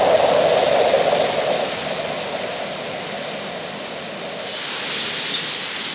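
Compressed-air jet tube blowing a wide spray of water across a pond, a steady rushing hiss of air and water. The deeper part of the rush fades after about two seconds, and the hiss brightens again near the end.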